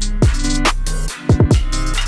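Electronic background music with a heavy held bass and a fast drum-and-bass beat.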